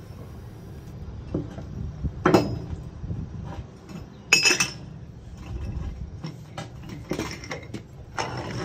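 Steel slickline rope socket being handled and set down: several sharp metal clinks and knocks, the loudest about four seconds in.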